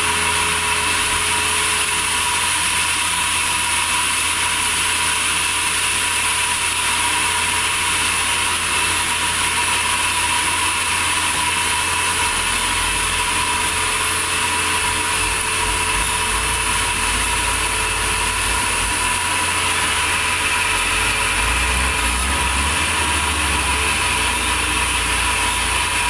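Band sawmill running steadily, its vertical band-saw blade cutting lengthwise through a large log, over the low hum of the machine's drive.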